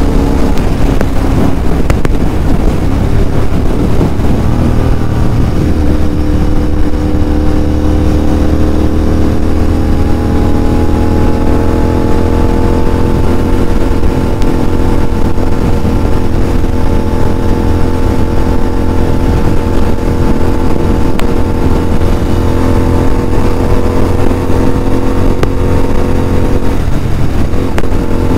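Royal Enfield Interceptor 650's parallel-twin engine through a Red Rooster full-system aftermarket exhaust, cruising steadily at highway speed, heard from the rider's seat with wind rush. The engine note holds steady, with a brief change near the end.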